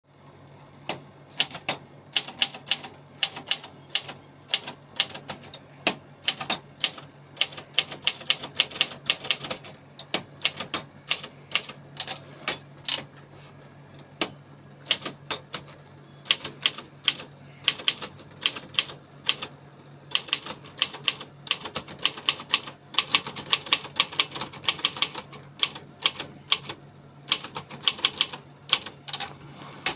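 Brother Deluxe 750TR typewriter being typed on: quick runs of sharp key strikes, broken by a few short pauses.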